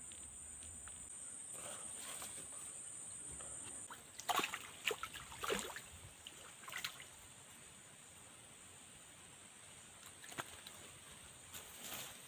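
Water splashing in a short flurry about four seconds in, with a couple of smaller splashes near the end, over a steady high-pitched insect chirring that drops off as the splashing starts.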